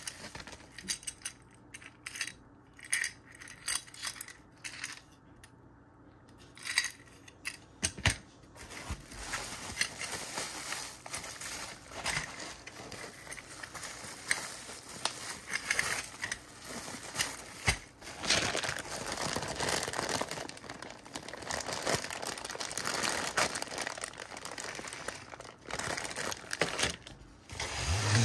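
Packaging being handled during unboxing: bubble wrap and plastic crinkling and rustling, with scattered clicks and light knocks against cardboard and foam. The rustling is densest a little past the middle.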